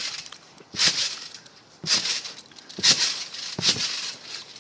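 Trampoline springs jangling with each bounce, in short, sudden bursts about once a second.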